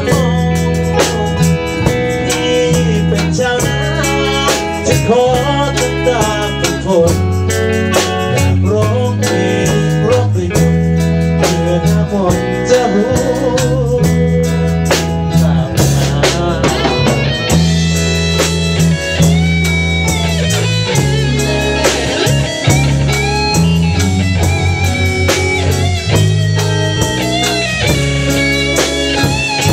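Band playing live in a small room: electric guitars over bass guitar and a drum kit keeping a steady beat, with higher bending lead notes in the second half.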